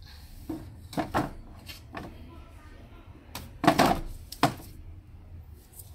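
Plastic cases of sealed lead-acid batteries knocking and scraping as they are handled and set down upright onto other batteries in a UPS's metal battery bay: a handful of separate clunks, the loudest a cluster about three and a half to four seconds in.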